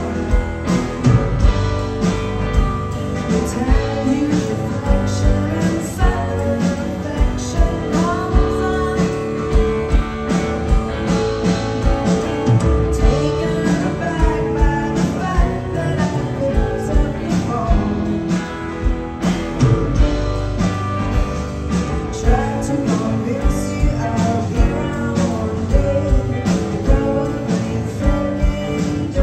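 Indie rock band playing live, heard from the crowd: a woman sings over electric guitar with a steady drum beat, with violin and cello in the band.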